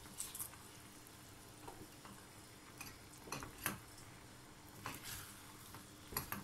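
Wooden spatula stirring eggs and sucuk in a stainless steel frying pan: soft, scattered scrapes and taps of the spatula against the pan, about eight in all.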